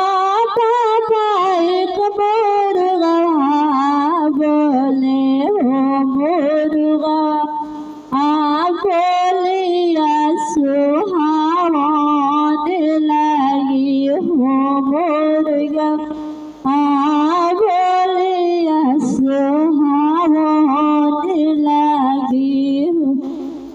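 A woman singing a Hindi daughter's-wedding folk song (beti vivah geet) solo into a handheld microphone, in long phrases with a wavering, ornamented pitch. She breaks off briefly twice, about eight and about sixteen seconds in.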